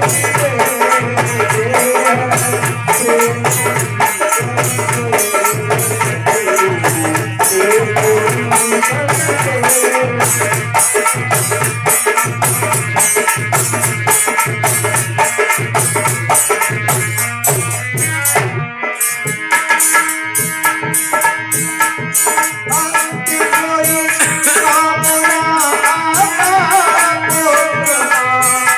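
Music driven by a dholak hand drum, with fast, even strokes over a melodic accompaniment. Deep bass strokes fall about twice a second until a brief break about two-thirds of the way in. After that the beat continues lighter, without the bass strokes, over a held drone.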